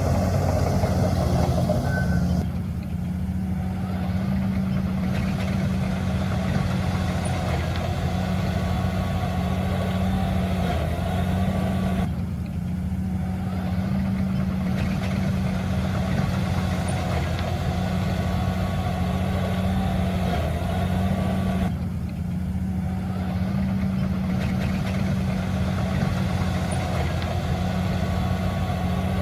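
Heavy diesel engine of earthmoving machinery running steadily with a low drone. Three times, about ten seconds apart, its higher noise briefly drops away while the low drone continues.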